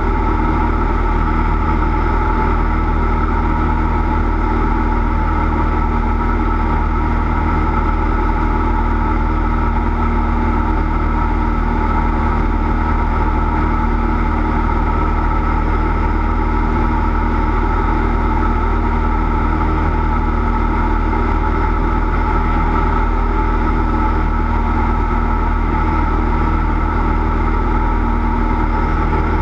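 Cessna 172 light aircraft's piston engine and propeller running at a steady, unchanging power: a loud, continuous drone with several fixed tones over a deep low rumble.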